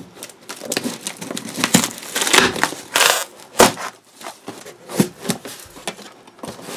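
Corrugated cardboard shipping box being pulled open by hand: flaps rustling, scraping and tearing in a string of irregular crackles and rips, with one sharper snap midway.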